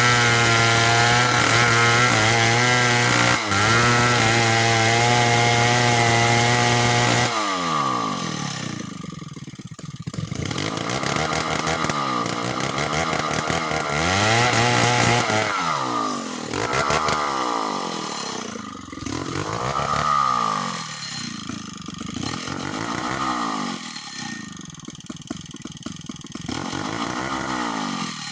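Two-stroke chainsaw running at high, steady revs for about seven seconds. It then drops off suddenly and is revved up and down repeatedly, its pitch falling and rising every couple of seconds.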